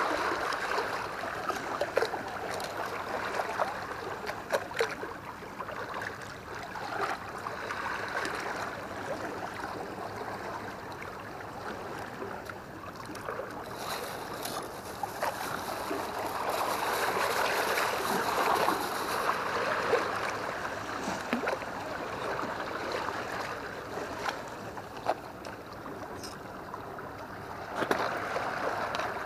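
Sea water washing and lapping against a concrete seawall, a steady splashy wash. Scattered clicks and knocks from handling a fish and tackle come through it, and a clear plastic bag crinkles for a few seconds about halfway through.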